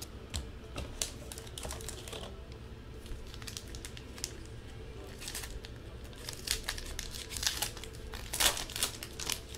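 A trading-card pack wrapper being torn open and crinkled in the hands: a run of scattered sharp crackles that grow denser and louder in the second half.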